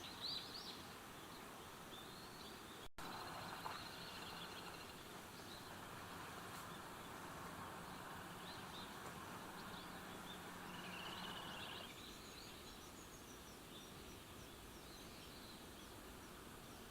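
Outdoor ambience of small birds chirping over a steady background noise. A low hum with a band of noise underneath runs through the middle and stops abruptly about twelve seconds in.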